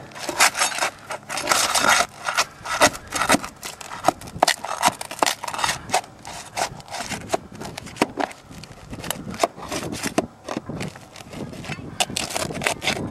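Flat steel pry bar scraping and prying under asphalt roof shingles, with many irregular sharp clicks and scrapes as the roofing nails are worked loose.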